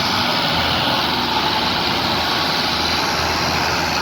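A steady engine running under a loud, even noise with a low hum, holding unchanged.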